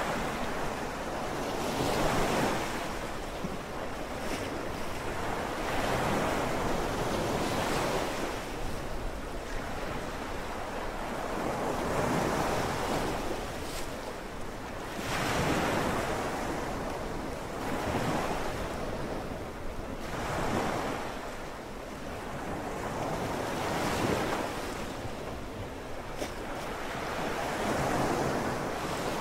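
Sea waves washing in and drawing back in slow surges, one every few seconds.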